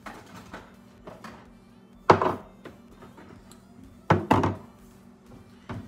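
Several dull thuds and knocks from things being handled and set down, the loudest about two seconds in and a quick pair about four seconds in.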